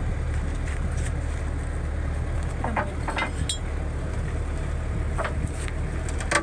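An engine idling with a steady low drone, with a few sharp metallic clinks over it, mostly around the middle and near the end.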